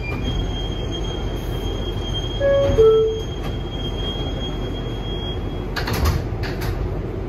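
Inside an R188 subway car: the two-note descending door chime sounds about two and a half seconds in, and a few seconds later the sliding doors close with a couple of clunks, over the car's steady low rumble and a thin high whine.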